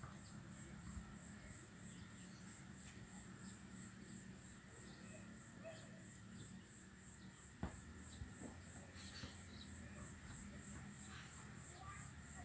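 Steady high-pitched insect drone with an even, rapid pulse over a low background hum, with a few faint bird chirps and a single click just past halfway.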